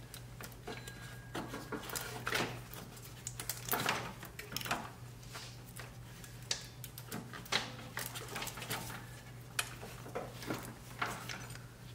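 Serpentine belt being worked off the engine's pulleys by hand: irregular light clicks, small knocks and rubbing from the belt, pulleys and tools, over a steady low hum.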